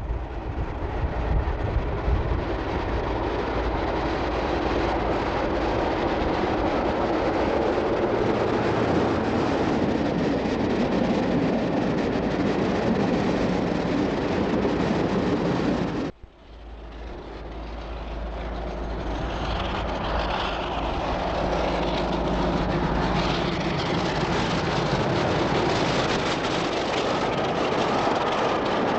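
Diesel train running past, a steady rumble of engine and wheels on rail. The sound cuts out abruptly about sixteen seconds in, then a second passing train builds back up.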